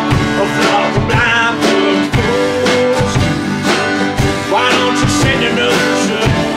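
Acoustic band playing an instrumental passage between sung lines: an acoustic guitar strummed on a steady beat with an accordion, under a wavering sustained lead melody.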